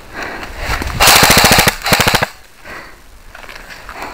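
Airsoft rifle firing on full auto: two rapid bursts of evenly spaced shots, the first about a second in and lasting most of a second, the second shorter just after it.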